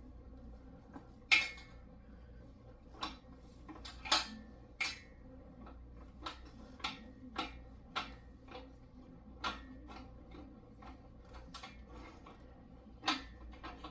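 Loose metal engine parts and hand tools clinking and clanking, about a dozen irregular knocks, the loudest about a second in and around four seconds in.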